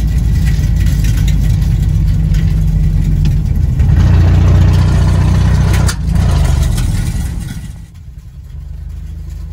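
Engine and road noise of an old Ford F-150 pickup, heard inside the cab while it is being driven. It is a steady low rumble that grows louder about four seconds in and drops off sharply near eight seconds.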